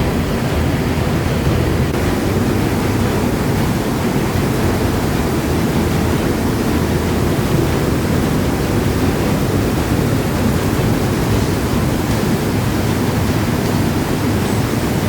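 Underground waterfall in a cave, a powerful mountain stream falling about 18 m, making a loud, steady rush of water with no break.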